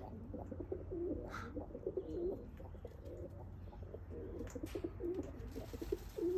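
Domestic pigeons cooing: a continuous run of low, throaty, overlapping warbling calls.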